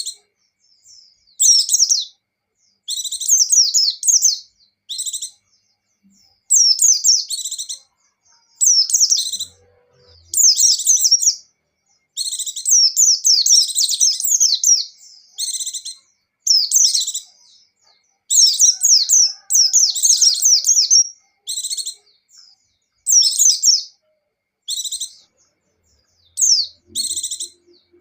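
Pleci (white-eye) singing in quick, high-pitched twittering phrases. The phrases come in bursts of a second or two, separated by short pauses.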